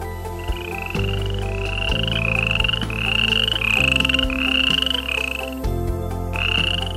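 An animal calling over and over: about nine short buzzy calls, each rising slightly in pitch, with a pause near the end. Low sustained background music notes play underneath.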